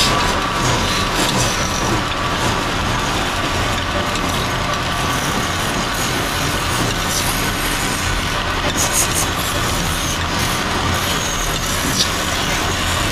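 Belt-driven wood lathe running steadily while a hand-held chisel cuts a spinning wooden bed leg: a continuous hum with the scrape of the tool on the wood, and a short sharp tick near the end.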